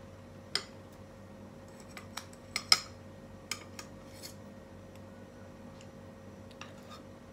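Metal fork and spoon clinking and scraping against a frying pan as they pick apart meatballs in broth. The sharp clinks come in a cluster from about two to four seconds in, the loudest near the middle, and a few stray clinks come before and after.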